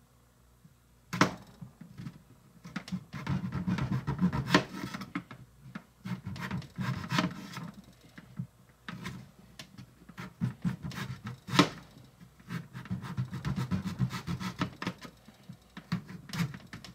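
A small, very sharp knife slicing a peeled potato into thin slices on a small cutting board: irregular scraping strokes with sharp clicks, the loudest a little past the middle.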